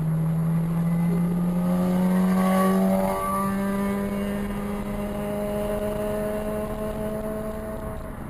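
Vehicle engines on the road. A steady low engine drone climbs slowly in pitch and breaks briefly about three seconds in, like a gear change. A higher engine note climbs as a motorcycle overtakes, then holds steady as it pulls ahead.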